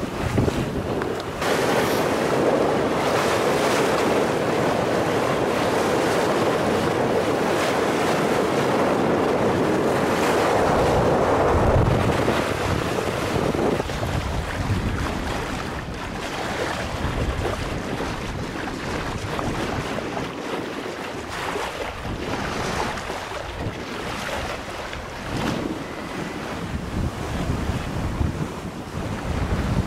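Wind buffeting the microphone over the rush and splash of water along the hull of a sailboat under way under sail. It comes in gusts, louder through the first dozen seconds and easing after.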